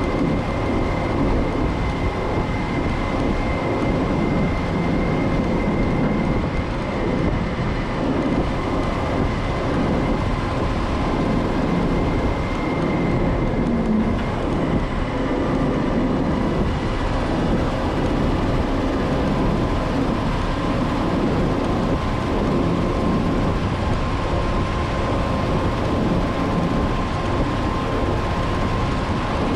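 M936A2 five-ton military wrecker driving at a steady speed, heard from inside the cab: its diesel engine runs evenly under the rumble of road and drivetrain noise, with a faint thin steady whine above it.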